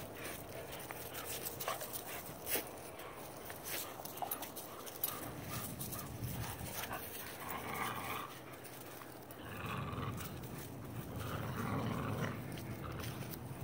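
A pit bull and a Newfoundland playing tug of war, panting and growling, with the growling louder in two stretches in the second half.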